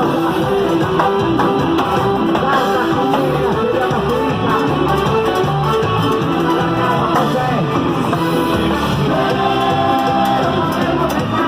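Music with singing and guitar, played loudly and continuously.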